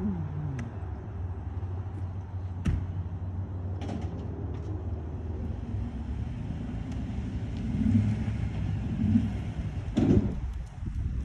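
Ford Super Duty pickup's engine running as it pulls a heavily loaded gooseneck trailer of firewood forward. A door shuts with a sharp knock about three seconds in, and a loud thump comes about ten seconds in.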